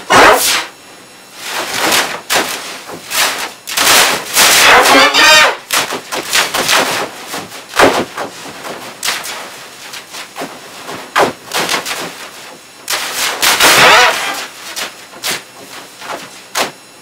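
A boy's shrill, wavering screams and hard slams of a computer keyboard, chopped into loud, abrupt bursts at uneven intervals with short gaps between them.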